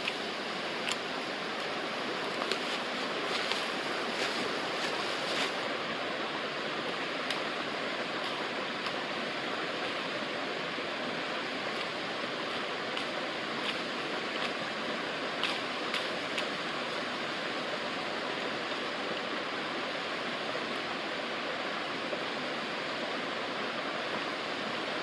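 Steady rush of a mountain creek, with a scatter of sharp clicks in the first few seconds and again around the middle from a knife cutting a stick into a meat skewer.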